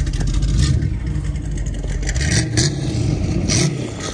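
A classic car's engine running as the car drives off along the road, with a steady low rumble.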